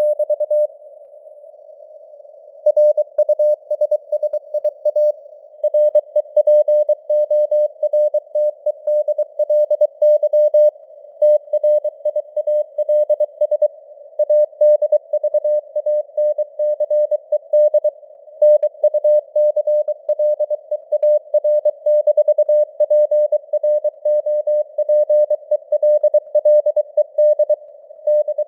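Morse code (CW) sent at 23 words per minute: a tone of about 600 Hz keyed on and off in dots and dashes, over a narrow band of simulated radio hiss. There is a pause of about two seconds near the start.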